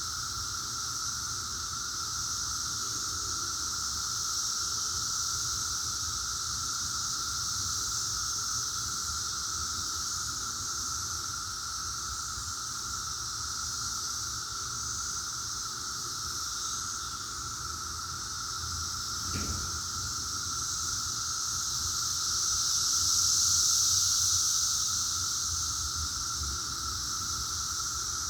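Dense chorus of Brood X periodical cicadas: a steady drone with a lower and a higher pitched band, swelling louder about 23 seconds in. A single brief knock about 19 seconds in.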